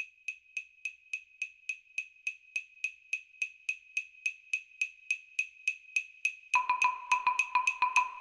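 Background music: a short high note repeats steadily like a clock tick, about three and a half times a second. About six and a half seconds in, a lower note joins on the same beat and the music gets louder.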